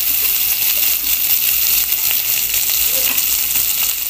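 Sliced onion and frozen green peas sizzling in hot oil in a frying pan, a steady hiss.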